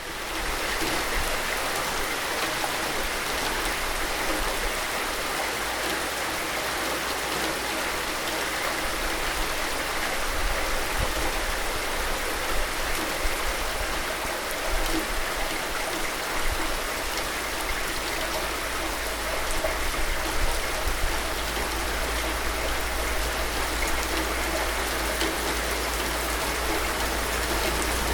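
Steady rain falling, a dense even hiss of raindrops with a few louder patters now and then.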